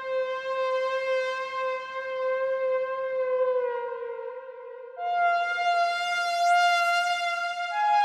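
Synapse Audio Dune 3 software synthesizer playing its 'Blade Gunner ST' preset: a sustained lead tone holding one long note that bends slightly down, then a higher held note about five seconds in, with another note added near the end.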